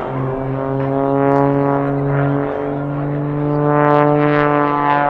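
Aerobatic propeller plane's piston engine and propeller droning in flight during an aerobatic manoeuvre; the pitch shifts about halfway through as power or speed changes.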